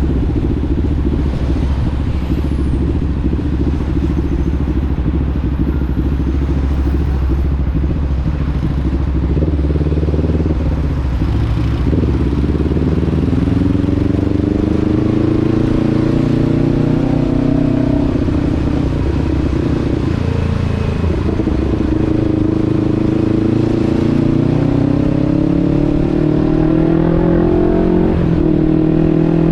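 Vehicle engine running under way, recorded on board, its pitch climbing and dipping several times as the revs change, with the steepest climbs in the second half.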